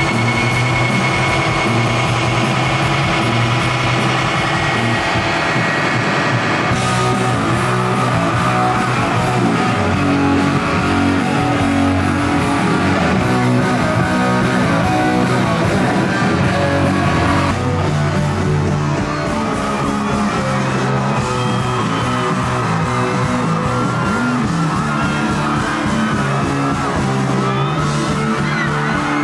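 Rock band playing live, with guitar, singing and yelling, changing abruptly twice.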